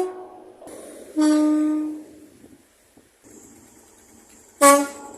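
Train horn sounded in separate blasts. One note dies away at the start, a blast of about a second follows about a second in, and a short loud blast comes near the end.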